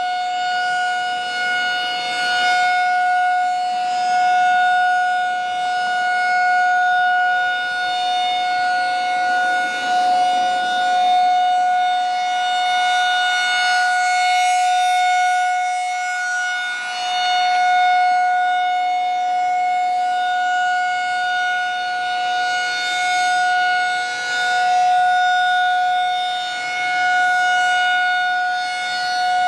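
Federal Signal 2001-SRN rotating outdoor warning siren sounding a steady alert tone. Its pitch holds level while the loudness swells and fades every several seconds as the rotating head sweeps past.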